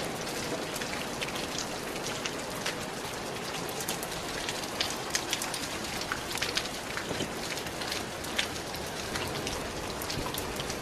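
Steady rainfall, with many separate drops ticking and pattering against a surface.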